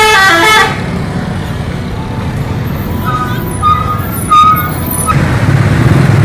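Multi-tone musical bus horn playing a short tune that ends about half a second in, then the low engine rumble of a large coach passing close, with a few short horn notes a few seconds in and the engine louder near the end.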